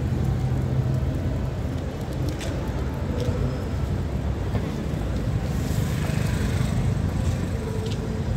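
Steady rumble of road traffic at a busy city junction, with cars and taxis passing. It swells a little about six seconds in.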